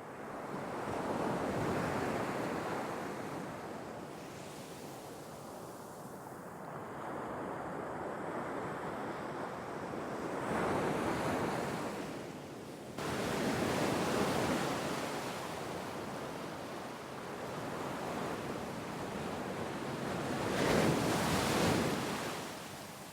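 Sea waves washing onto the shore, surging and fading about four times. The loudest surge comes near the end, and there is an abrupt rise in level about halfway through.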